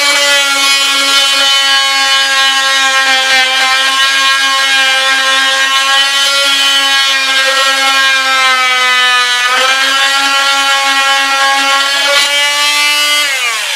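Oscillating multi-tool running at a steady pitch while cutting into a Douglas fir boat plank, trimming the last of a scarf joint. The motor dips briefly about nine and a half seconds in, then winds down, falling in pitch, near the end.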